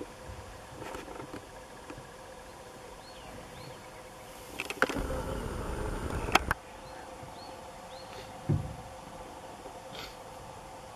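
African elephant browsing in bushes: about halfway through, a stretch of rustling and crackling of about two seconds as branches are pulled and broken, with a sharp snap at its start and another at its end. A short low thump follows, over a faint steady hum.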